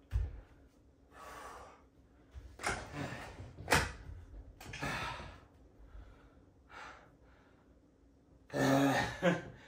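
A man breathing hard and out of breath after a set of push-ups: loud gasping breaths about once a second, with a sharp knock a little before the middle and a voiced sigh near the end.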